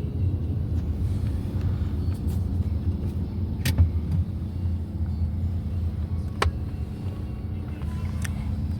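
Steady low rumble of car or road traffic noise, with three sharp clicks a few seconds apart.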